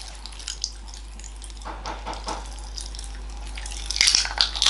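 Popping candy crackling and fizzing in a mouth: scattered small pops and crackles, with a denser flurry about four seconds in.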